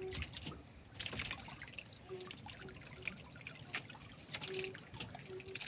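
Water lapping and trickling against the hull of a small outrigger boat, with faint scattered clicks and taps.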